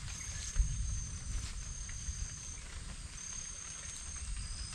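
Insects calling in steady high-pitched tones that start and stop every second or so, over a low rumble on the microphone, with a single knock about half a second in.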